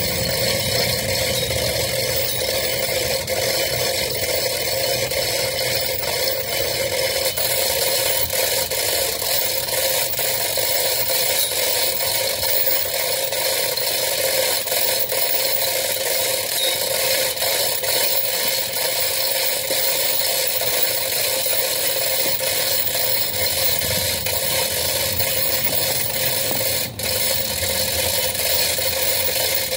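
Hand-operated chain hoist being worked steadily, its ratchet pawl clicking rapidly and continuously as it lifts a flax (harakeke) plant's root ball out of the ground on a sling. A brief break in the clicking comes near the end.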